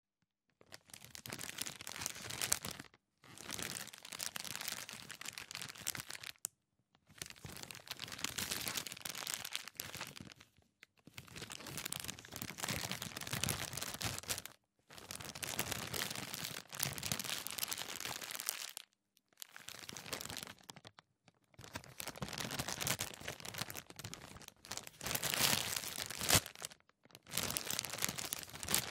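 Plastic bag being crumpled and rustled in a series of crackly bursts a few seconds long, separated by short pauses.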